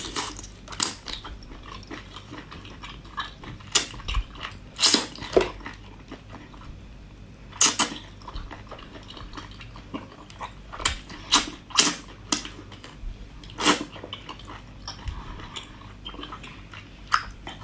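Close-miked mouth sounds of eating: wet chewing, lip smacks and slurps coming in irregular sharp bursts.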